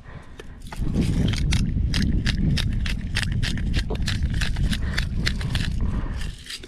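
Small bottle spice grinder being twisted by hand over scallops in the shell: a quick, even run of crunching clicks, about four to five a second, starting about a second in and stopping just before the end.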